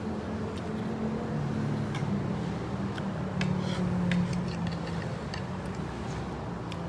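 A steady low mechanical hum, like a nearby engine or traffic, with scattered light clicks of cutlery and dishes.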